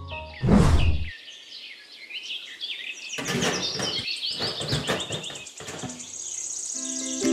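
Small birds chirping and twittering in quick, high, repeated calls. A loud burst of noise comes about half a second in, and short scraping knocks of the plastic basin being pressed into the sand follow in the middle.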